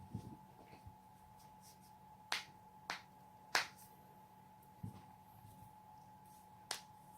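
Joints cracking: four sharp pops, three in quick succession a couple of seconds in and one more near the end, over a faint steady hum.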